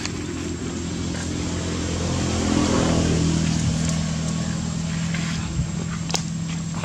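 A motor vehicle's engine running nearby, growing louder to a peak about three seconds in and then easing off as it passes. There is a single sharp click near the end.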